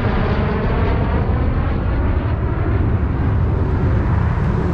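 Fighter jet on final approach with its gear down, its jet engine roaring steadily; the higher hiss thins out over the second half as the jet moves away.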